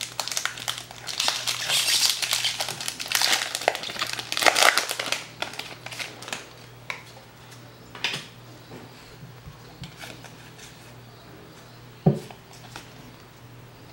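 Foil wrapper of a Pokémon trading-card booster pack crinkling as it is opened by hand, dense for about the first five seconds. After that come softer rustles as the cards are handled, and a single sharp tap near the end.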